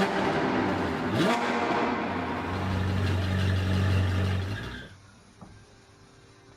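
Car engine running, with a brief rev about a second in, then a steady drone that fades out at about five seconds.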